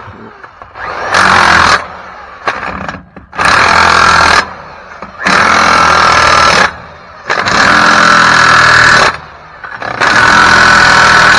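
Impact wrench running in five bursts of about one to two seconds each, driving lug nuts down to fasten a wheel adapter to the hub.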